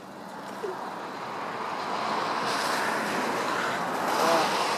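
A vehicle passing on a wet road: the hiss of its tyres on wet asphalt grows louder over about four seconds.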